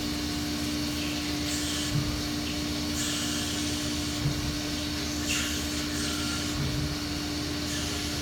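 CNC machine running its automatic cycle, drilling two holes in a clamped blank: a steady machine hum with one continuous tone, and hissing surges several times.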